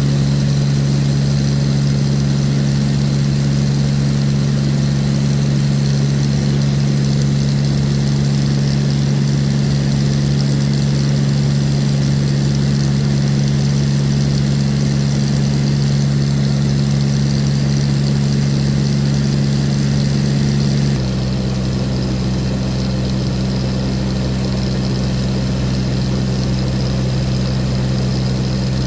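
Light aircraft's engine and propeller drone heard inside the cabin, a loud steady hum. About two-thirds of the way through the hum shifts abruptly to a slightly lower pitch and level.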